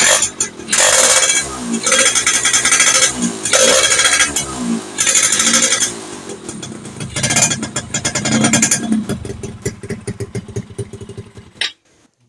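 Yamaha F1ZR two-stroke single revved in a series of throttle blips, each rising and falling in pitch, then running lower until it stops abruptly near the end. It is a test of the bog and popping on throttle after an air-chamber swap; the owner finds it still slightly off but better, and suspects the pulser.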